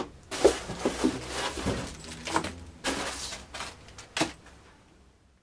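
Packaging and a boxed monitor being handled: a series of knocks and rustling scrapes, the sharpest knocks about half a second in and just after four seconds, dying away near the end.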